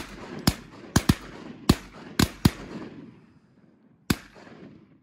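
Several duck hunters' shotguns firing a rapid volley at a passing flock of ducks: about seven sharp shots in the first two and a half seconds, two of them almost together, then one last shot about four seconds in. Each shot is followed by a rolling echo.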